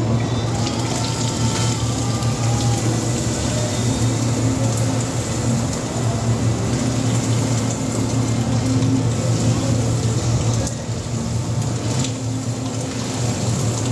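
Crushed malt pouring from a bucket into the mash water, a steady rain-like hiss, over the steady hum of the brewing system's pump running.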